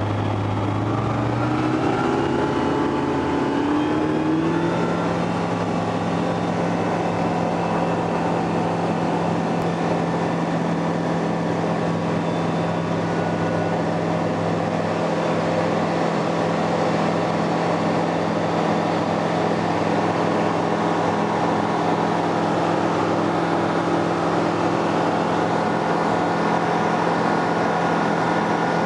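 Single-engine propeller aircraft engine heard from inside the cockpit of a Zodiac light plane, throttled up for takeoff. The engine note rises over the first few seconds, then runs steadily at full power through the takeoff roll and climb-out.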